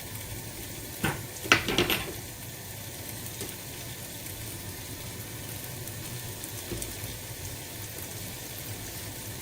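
Pot of chicken, chorizo and vegetable stew cooking on the hob with a steady sizzle. A few short clinks or knocks come between one and two seconds in.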